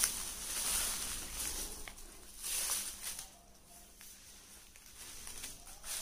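Intermittent rustling and scuffing from handling things and moving about on a floor strewn with dry straw and debris, louder near the start and again around the middle, then quieter for a couple of seconds.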